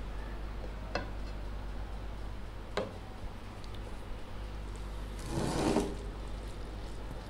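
Hand-eating sounds at a plate: two light clicks, about one and three seconds in, as dal is poured from a small bowl onto rice. Then a louder, brief rustle as fingers mix the rice and dal. A low steady hum runs underneath.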